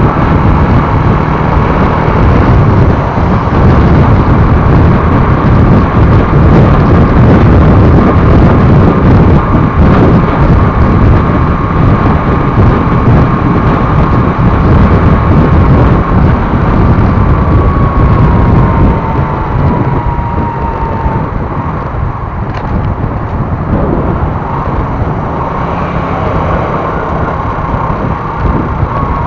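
Motorcycle ride: heavy wind buffeting on the camera microphone over engine and road noise, with a whine that falls in pitch and the rumble easing about two-thirds of the way through.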